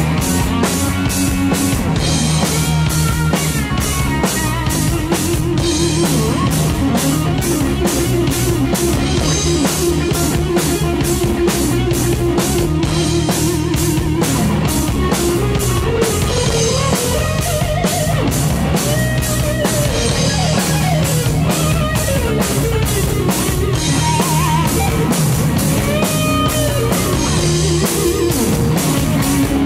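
Live rock band playing an instrumental passage with no vocals. A Stratocaster-style electric guitar plays lead lines with bent notes over bass guitar and a drum kit keeping a steady beat on the cymbals.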